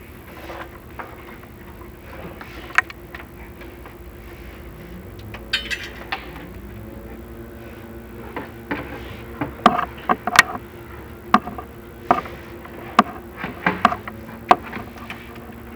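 Scattered sharp knocks and scrapes, more frequent in the second half, from a chimney inspection camera and its cable bumping along a creosote-coated flue. A steady electrical hum from the camera equipment runs underneath.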